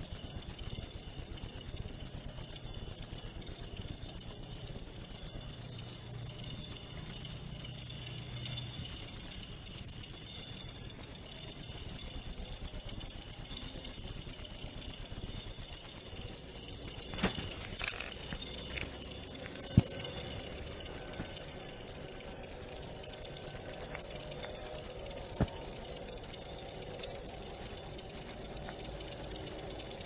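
Cricket chirping in a steady, high, unbroken trill of fast pulses, with a short dip and a few faint clicks a little past the middle.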